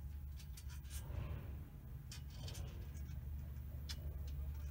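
Scattered light clicks, knocks and rustles of a handheld camera being moved through a cluttered cabin, over a steady low hum.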